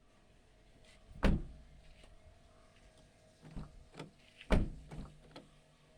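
Knocks and thumps from a Maruti Suzuki Alto's door: two loud thumps about three seconds apart, with lighter knocks and clicks between and after them.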